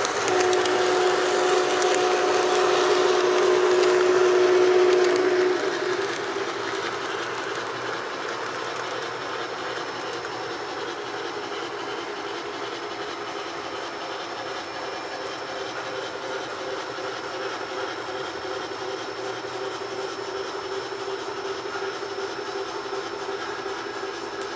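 A model steam locomotive's whistle held in one long steady note that cuts off about five and a half seconds in, then the steady running sound of the model passenger train rolling along the track.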